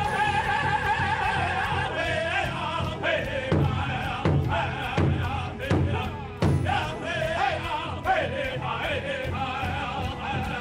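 A powwow drum group: several men singing together in high, wavering voices over a large powwow drum struck in unison with padded drumsticks in a steady beat. Partway through, the voices slide down in pitch several times.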